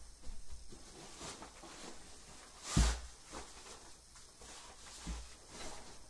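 A person moving about a small room off-camera, fetching something: scattered knocks, rustles and footfalls, with one louder thump nearly three seconds in.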